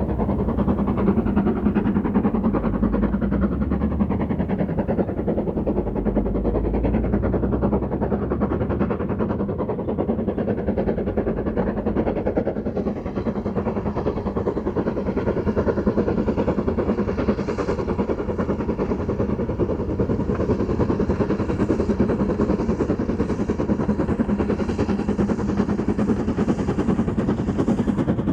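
GWR Prairie tank locomotive 5526 and its train running, a steady loud mechanical noise with fast, even clatter, plus a deeper rumble through the first eight seconds or so.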